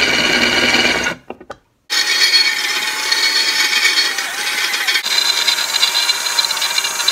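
Cordless drill running and boring through flat metal bar stock: a steady motor whine with the bit grinding through the metal. It breaks off about a second in and starts again under a second later.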